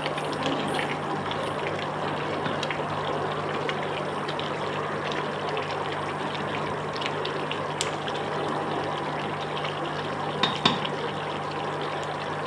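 Chicken gravy simmering at a boil in a steel kadai, bubbling and crackling steadily over a steady low hum, with a wooden spoon stirring it. A few louder clicks come near the end.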